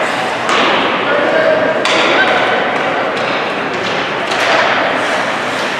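Ice hockey game sounds in a rink: a handful of sharp knocks and thuds of sticks, puck and players against the boards and ice, over a steady din of voices from players and spectators.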